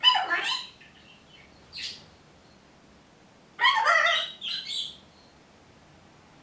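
Pet parrot calls: a loud harsh call at the very start, a short one about two seconds in, and a longer run of squawking calls just past halfway.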